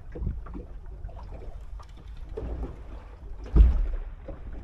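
Wind and water against a small fishing boat, a steady low rumble with small scattered clicks. A heavy thump about three and a half seconds in is the loudest sound.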